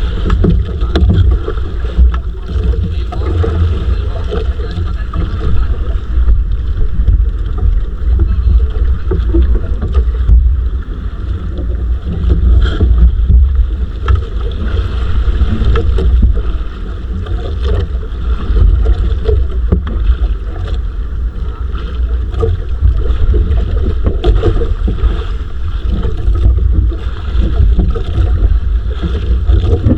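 Small fishing boat under way at sea: its engine running steadily, with wind buffeting the microphone.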